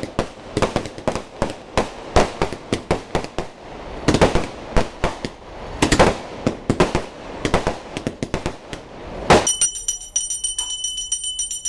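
Firecrackers going off in rapid, irregular bangs, several a second, over the hiss of ground fountain fireworks. Near the end they give way abruptly to a small metal hand bell rung continuously, as a puja bell is rung during the ritual.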